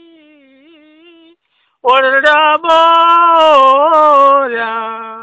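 Solo voice singing, unaccompanied. A quiet held note ends about a second in. After a short pause, a loud phrase begins, sliding and wavering between notes, and settles on a long held low note at the end.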